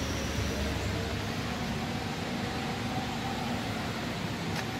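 Diesel engine of a Scania K320IA articulated bus running steadily: a low, even rumble.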